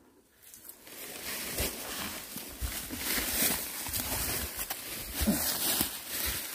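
Footsteps crunching and sliding through dry leaves and brush on a steep slope, with rustling and irregular knocks. The sound starts about half a second in and grows louder.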